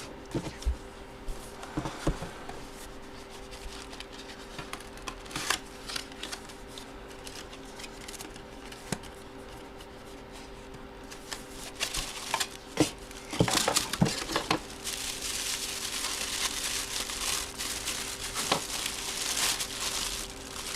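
Packaging crinkling and rustling as a boxed baseball is pulled out and unwrapped, with scattered light clicks and knocks. In the last several seconds the crinkling turns denser and steadier.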